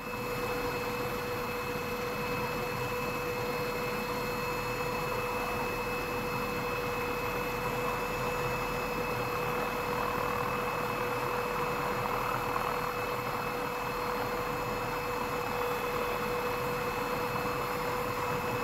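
Steady helicopter noise heard from inside the cabin: an even rushing with a constant whine from the engine, unchanging throughout.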